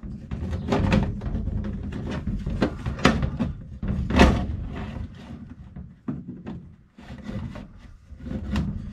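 Plastic condensate pump being handled and pushed into place against a sheet-metal furnace cabinet: a string of knocks, clunks and rattles, the loudest about four seconds in.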